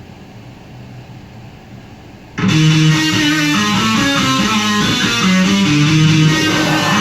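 Low steady hiss, then about two and a half seconds in a karaoke backing track starts abruptly at full volume: band music led by electric guitar with bass.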